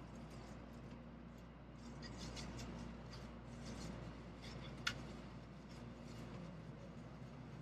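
Quiet, steady low hum of a Shinkansen passenger car's interior, with faint light clicks and rustling and one sharp click about five seconds in.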